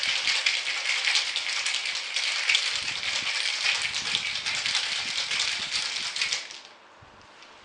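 Ice cubes rattling hard inside a metal cocktail shaker being shaken to chill a drink: a fast, dense rattle that stops abruptly about six and a half seconds in.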